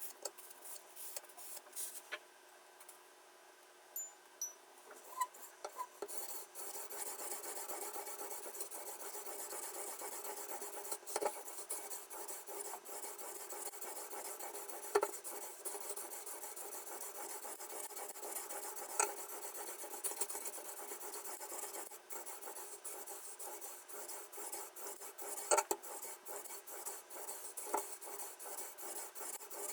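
Sharpening stone on a guided knife-sharpening system rasping along a kitchen knife's edge. It is quiet for the first few seconds apart from a few light clicks, then turns into continuous scraping from about six seconds in, with occasional clicks.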